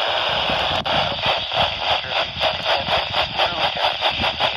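Weather radio receiver static: a loud, steady hiss of weak reception that starts to flutter in quick, even pulses about a second in.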